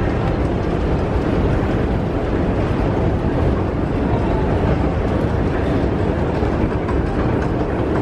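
Steady low rumbling noise on a long Underground station escalator, from the moving escalator and the station around it.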